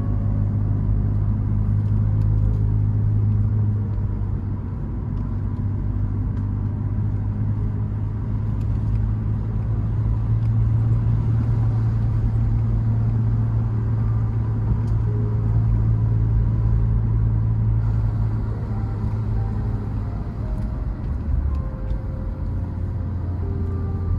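Car engine running steadily with a low hum whose pitch shifts slightly now and then, as the car drives.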